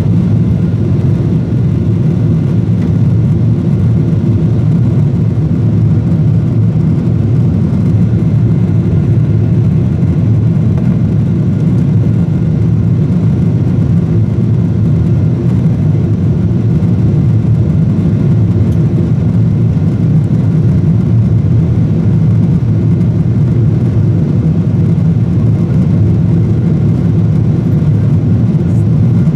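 Steady low rumble inside a Boeing 747-8 cabin in flight: engine and airflow noise heard from a window seat over the wing.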